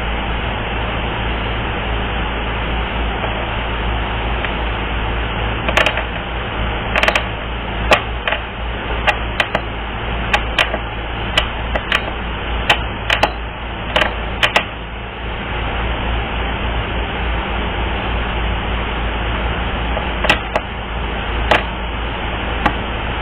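Steady background hiss with a run of irregular sharp clicks and taps, about a dozen spread between roughly six and fifteen seconds in, and a few more near the end.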